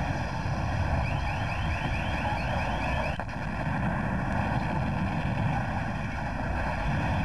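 Continuous low rumbling noise. A fast warbling alarm or siren tone, about five pulses a second, comes in about a second in and lasts about two seconds.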